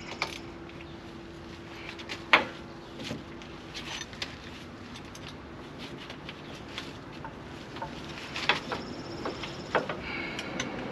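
Scattered clicks and metallic knocks of hand tools and parts being handled in a truck's engine bay, with one sharp knock about two seconds in and a cluster of clicks near the end.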